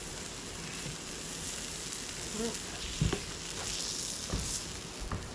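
Food sizzling steadily as it cooks, with a couple of sharp knocks about three and four seconds in.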